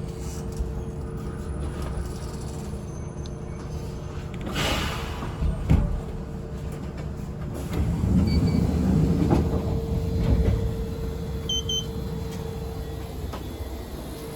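Stopped train car at its terminus: a steady hum with a hiss and a thump about five seconds in as the sliding doors work, then a louder stretch of rumble and a few short beeps.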